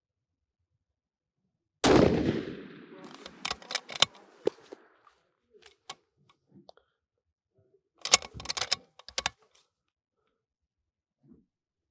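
A single rifle shot from a 6.5 Creedmoor bolt-action rifle about two seconds in, its report rolling away over the next couple of seconds, followed by sharp metallic clicks of the bolt being worked. A second quick run of clicks comes near the end.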